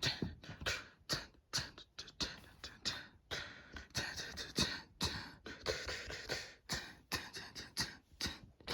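A rapid, uneven run of sharp percussive clicks and short hissing hits, several a second, in the manner of a beatbox or a sparse drum beat.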